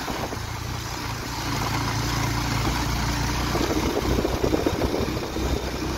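Motorcycle engine running steadily as the bike is ridden, with wind and road noise over it.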